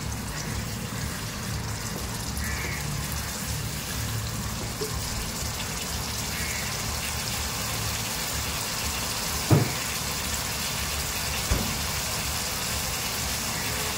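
Masala simmering in a frying pan with a steady sizzle as milk and then soaked basmati rice are poured in; two sharp knocks sound in the second half.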